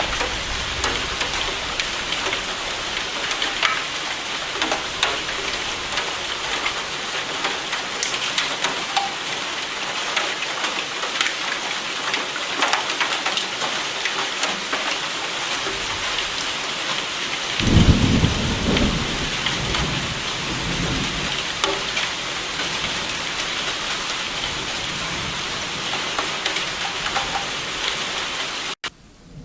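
Steady heavy rain with dense patter throughout. A little past halfway a single roll of thunder breaks in, rumbling low for a few seconds before fading back under the rain. Just before the end the rain cuts off suddenly.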